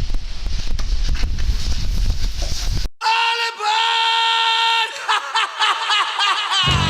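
About three seconds of rumbling wind noise on the microphone, then a sudden cut to music: a long, high held note, then wavering, bending notes.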